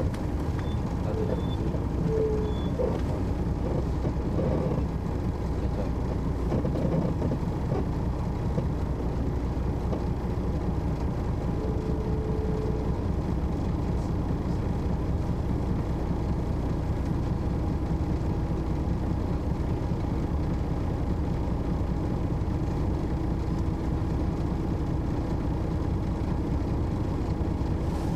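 2002 MCI D4000 coach's Detroit Diesel Series 60 engine running steadily, a low, even rumble heard from inside the passenger cabin.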